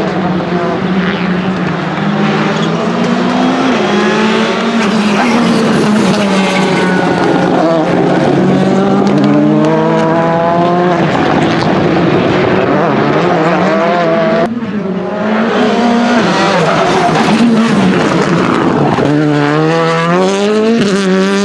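Rally car engine at full throttle, its pitch climbing steeply and dropping back at each gear change, over and over. There is a brief lift of the throttle about two-thirds of the way through.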